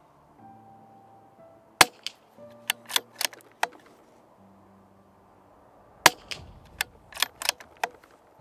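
Two suppressed shots from a CZ 457 .22 rimfire bolt-action rifle firing CCI Suppressor 45-grain subsonic hollow points, about four seconds apart. Each sharp crack is followed by a quick run of lighter metallic clicks, the bolt being worked to chamber the next round.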